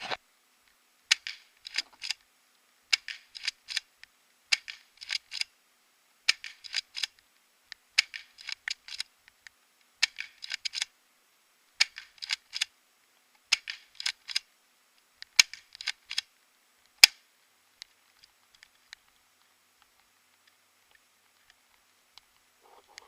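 Spring-powered airsoft pump-action shotgun, a three-shot-burst ASG Franchi SAS 12, being pumped and fired over and over: about ten rounds of a sharp snap and a quick run of plastic clicks, one every second and a half to two seconds. After about 17 seconds only a few faint clicks remain.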